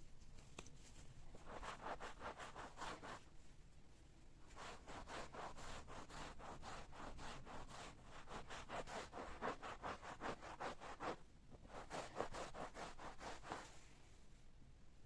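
Brisk back-and-forth scrubbing or rubbing strokes, about six a second, in three runs with short pauses between.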